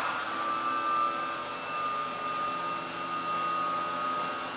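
Steady machine hum with a high, constant whine running through it.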